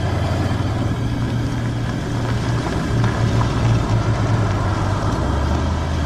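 Police car engine running steadily as the car drives in: a low rumble with tyre noise over a dirt road.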